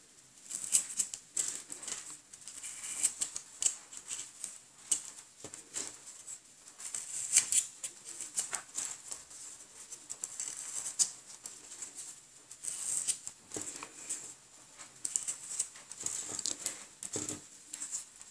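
Halved cotton swabs being pushed one by one into a polystyrene foam ball and handled between the fingers: a run of small, irregular clicks and scratches.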